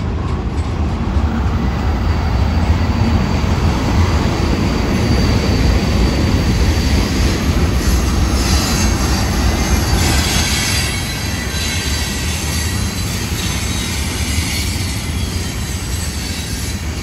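Freight train of tank cars rolling past on the rails: a steady rumble of steel wheels and cars, louder and brighter from about 2 to 11 seconds in.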